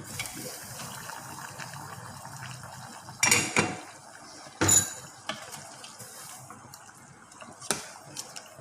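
Metal kitchen pots and utensils clattering: two loud clanks about three and four and a half seconds in, and a lighter knock near the end.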